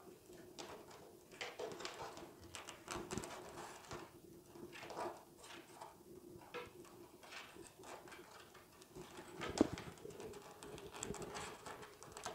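Rolled paper weaving tubes clicking and rustling against one another and the tabletop as they are bent, spread apart and twined by hand: a run of light, irregular taps, the sharpest about ten seconds in, over a faint steady hum.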